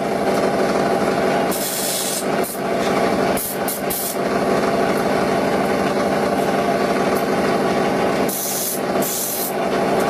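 Bench grinding wheel running with a steady motor hum, while the end of a thin watch-spring steel strip is pressed against it a few times, each contact giving a short hiss of grinding. This is rounding off the strip's end so it will not cut the hand.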